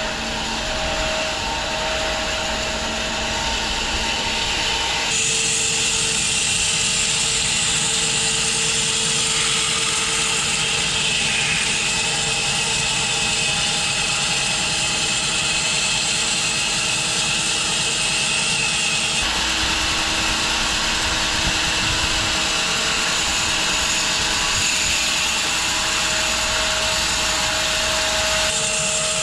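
Wide home-built bandsaw mill running with its blade cutting through a walnut log, a steady mechanical sawing sound. Its tone changes abruptly twice, about a third of the way in and again about two-thirds in.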